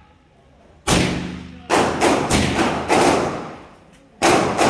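Suppressed M16 rifle fired as single shots in quick succession, each a sharp report with a short ringing tail. A run of about six shots is followed by a brief pause, then more shots near the end.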